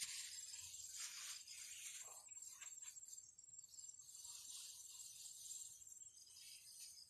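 Faint steady high trill of crickets, with soft swishing rustles of rice seedling leaves being handled about one and two seconds in and again later.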